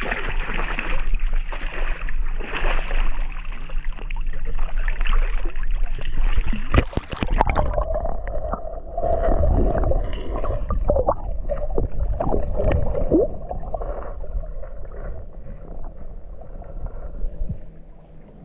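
A dog splashing and pawing in shallow lake water close to the microphone. About seven seconds in there is a loud splash, and the sound turns muffled and gurgling as the camera goes under water. It fades near the end.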